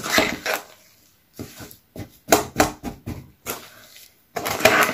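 Irregular stirring and scraping strokes through a stiff, rock-hard mix of sand, cornstarch and soapy water that is hard to combine, with a longer, louder scrape near the end.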